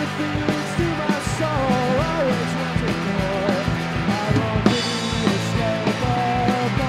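Live blues-rock band playing: a drum kit keeps a steady beat under a lead line that bends up and down in pitch.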